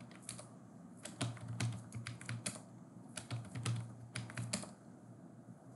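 Typing on a computer keyboard: several short runs of key clicks with pauses between them, as passwords are keyed in at a login prompt.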